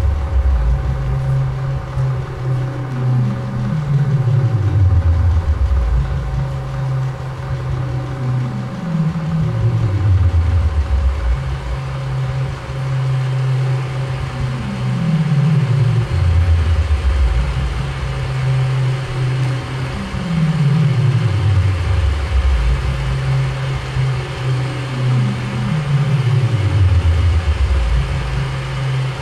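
Improvised electronic drone: deep tones that slide downward in pitch about every five to six seconds, five times, with a steady low hum between the slides and higher sustained tones held throughout.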